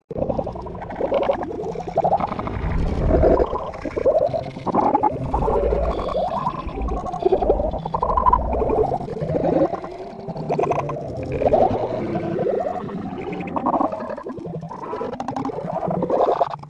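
Cartoon soundtrack mangled by layered audio effects into a continuous warbling, gurgling wash of short, bending pitched sounds over a low rumble.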